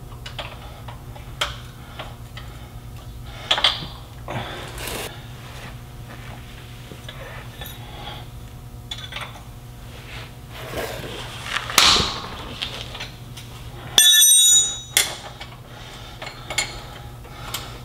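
Hand tools clinking, clicking and scraping on the mounting bolts of a heavy truck's starter motor, over a steady low hum. About fourteen seconds in, a loud, bright metallic ring lasts about half a second.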